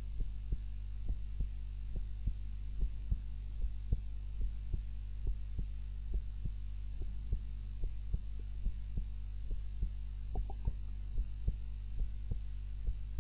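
A person's heartbeat recorded during sleep while lying on her back: an even, regular rhythm of soft beats over a steady low hum.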